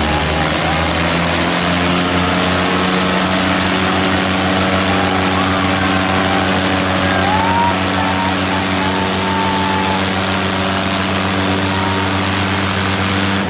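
Diesel engines of a Sonalika 750 and a Mahindra 585 tractor running hard at a steady pitch, hitched together and straining against each other in a tractor tug-of-war.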